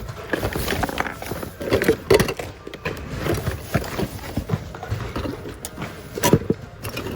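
Irregular clatter and knocking of hard objects being rummaged through and handled in a bin, with the sharpest knock about six seconds in.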